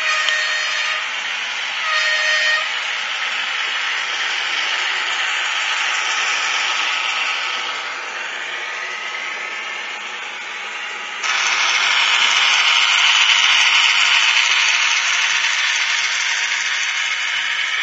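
H0-scale model of a Bombardier Blue Tiger 2 diesel locomotive running on its layout track, its ESU LokSound decoder sounding two short horn blasts near the start over a steady hissing running noise. The running noise grows suddenly louder about eleven seconds in.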